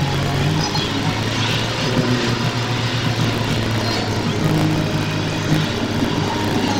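Engine and road noise heard from inside a moving vehicle's cabin as it drives along, a steady low hum under road rumble. Music plays over it, with held low notes that change pitch every second or so.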